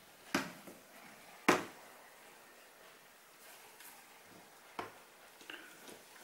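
Handling noise from a Sony a6300 camera and its shoulder strap being turned and moved on a desk: a few sharp knocks and clicks, the loudest about a second and a half in, with lighter taps near the end.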